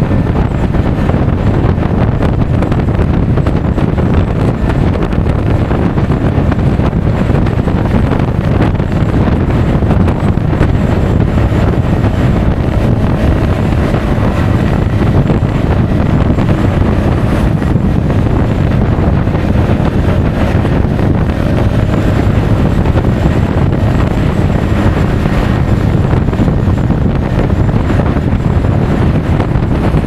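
Loud, steady wind noise buffeting an action camera's microphone on a Honda Forza 350 scooter riding at speed, with the scooter's engine and road noise underneath.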